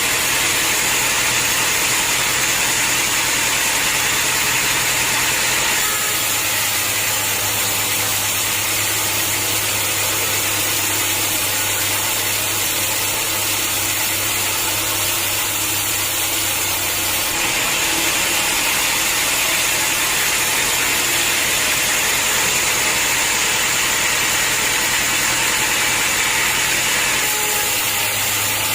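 Sawmill machinery running steadily: a constant low hum under a dense hiss. Its tone shifts abruptly about six seconds in and again a little past the middle.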